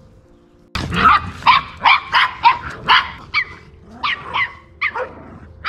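A dog barking in quick, high-pitched barks, about two a second, starting suddenly about a second in, with music faintly underneath.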